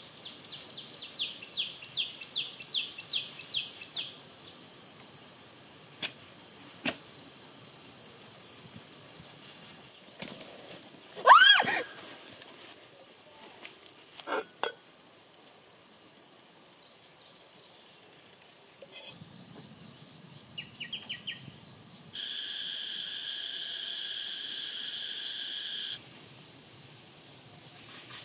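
Outdoor forest sounds: rapid high chirping at the start, a loud sweeping rise-and-fall in pitch about eleven seconds in, and a steady high insect-like buzz for a few seconds near the end, with scattered clicks in between.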